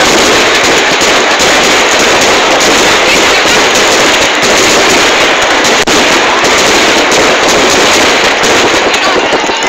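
Fireworks: aerial shells bursting overhead in a dense, continuous barrage of crackling and bangs. Very loud, with hardly a gap.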